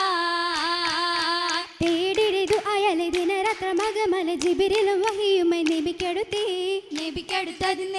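Female voices singing an oppana (Mappila) song, a single melody line with a wavering, ornamented held note. About two seconds in, quick rhythmic hand claps join the singing.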